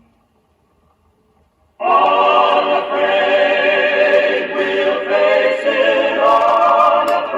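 Faint hum, then about two seconds in loud choral singing starts abruptly, played from a record on a vintage Trav-ler record player.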